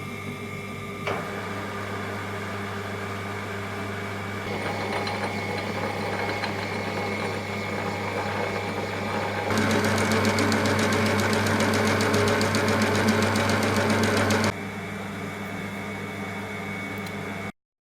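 Myford ML7-R lathe running under its electric motor: a steady mechanical hum with whirring drive noise that steps up and down in loudness several times, loudest in the middle stretch, then cuts off suddenly near the end.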